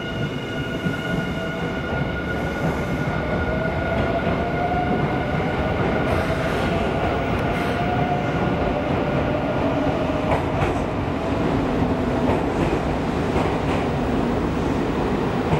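Nankai 50000 series Rapi:t electric train standing at the platform, its onboard equipment humming steadily with several high tones and a whine that rises slightly and falls back, and a lower hum growing in the second half.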